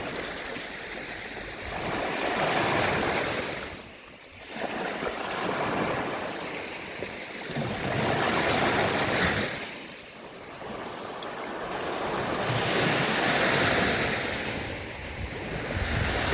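Gentle sea waves washing in on a shore: a rushing surf that swells and falls back in slow surges, about three of them, with a short lull between each.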